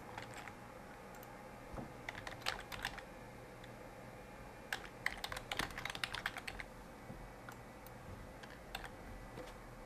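Computer keyboard typing in two short runs of key clicks, about two seconds in and again from about five to six and a half seconds in, with a few single clicks after that.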